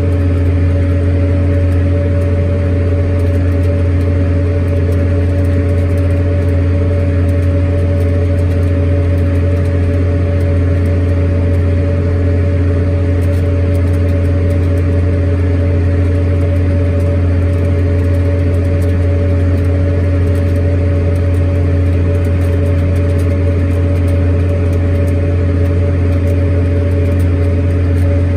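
Large farm tractor's diesel engine running steadily as the tractor drives across a field, heard from inside the cab: a deep, constant drone with a steady hum over it.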